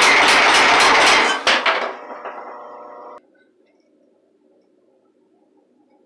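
Homemade power hammer pounding red-hot rebar into square bar, about five heavy blows a second. The blows stop about a second in, a few lighter strikes follow, and the machine keeps running more quietly until the sound cuts off abruptly about three seconds in.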